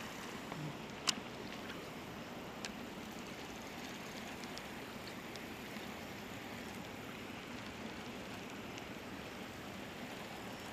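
Quiet steady background hiss while a fishing rod and reel are worked through a retrieve. There is one sharp click about a second in, a smaller one near three seconds, and a few faint ticks.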